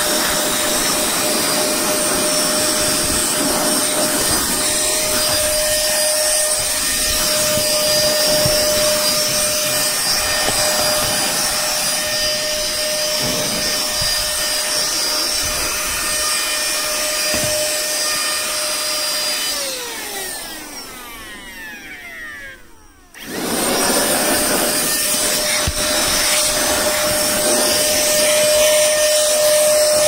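Milunho 9500Pa cordless handheld car vacuum running with a steady motor whine and suction hiss as it works over fabric car seats. About two-thirds of the way through it is switched off and the whine falls away as the motor spins down. A few seconds later it is switched back on and quickly runs up to speed again.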